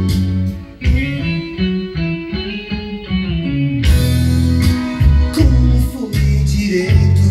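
Recorded music playing from a CD through a Gradiente Model 120 stereo integrated amplifier and its speakers, with a brief dip in loudness just under a second in.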